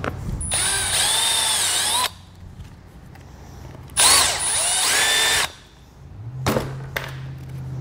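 Cordless drill with a step bit boring a hole through a plastic fuse panel cover, in two runs of about a second and a half each, its whine wavering in pitch as the bit cuts. A couple of sharp knocks follow near the end.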